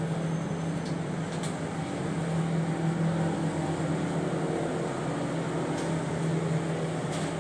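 Steady hum of a kitchen appliance's electric fan motor, a low pitched drone over a whir of moving air, with a couple of faint ticks.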